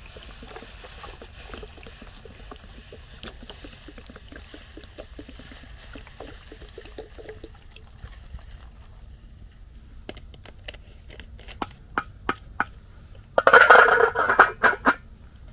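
Water dripping and trickling, with scattered sharp drips, then a short loud pour of water lasting about a second and a half near the end.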